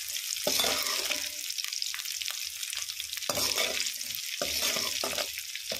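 Sliced onion and green capsicum sizzling in hot oil in a kadhai, stir-fried with a perforated steel ladle that scrapes and knocks against the pan in irregular strokes over a steady sizzle.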